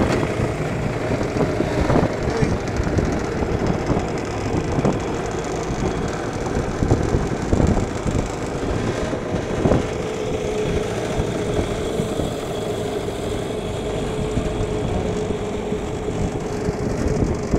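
Small boat's outboard motor running steadily, with a steady hum that becomes clearer about halfway through.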